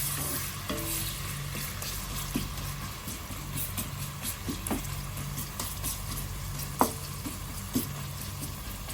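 Chopped onions sizzling in hot vegetable oil in a pot as they brown, stirred by hand, with a few sharp clicks of the stirring utensil against the pot; the loudest click comes about seven seconds in.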